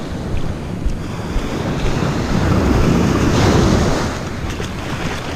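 Surf washing up the beach at the water's edge, swelling to its loudest about halfway through and then easing, with wind rumbling on the microphone.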